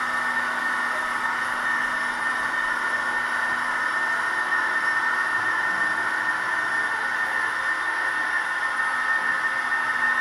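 Gauge 1 model train, a Fine Models SBB BDe 4/4 motor coach with light-steel coaches, running steadily along the track. It makes a continuous, even rolling and running noise of wheels on rails and motor.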